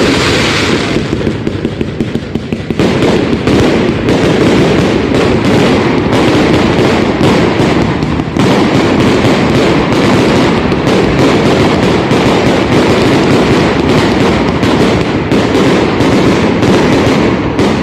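A close-up fireworks display: a rapid, almost unbroken barrage of loud overlapping bangs and crackles, thinning briefly about a second in and again near the middle.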